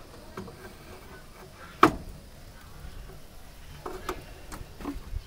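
A single sharp clack about two seconds in, with a few lighter clicks, from hard plastic and metal being knocked while a jug and the open radiator filler neck of an old car are handled.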